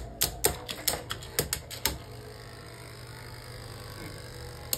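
Rapid sharp clicks and clacks of hard plastic Beyblade tops, about a dozen in the first two seconds, then a lull with a low steady hum and a single click near the end.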